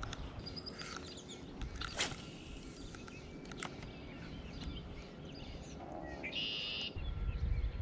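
Songbirds chirping and calling, with one buzzy trill about six seconds in. There is a sharp click about two seconds in and a low rumble near the end.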